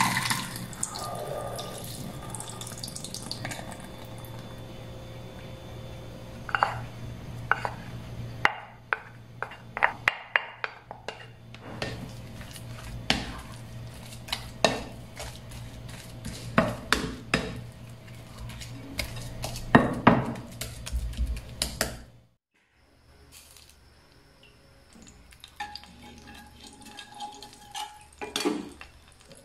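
Liquid pours into a stainless steel sink at the start. Then a plastic rice paddle scrapes and knocks against a glass mixing bowl as grated potato is stirred, in many short irregular clacks. After about 22 s it drops to a much quieter stretch with faint ticks.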